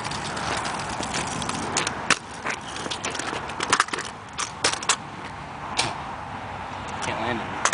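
Kick scooter rolling over asphalt, a steady rough wheel noise, with several sharp clacks and knocks as the deck and wheels strike the pavement.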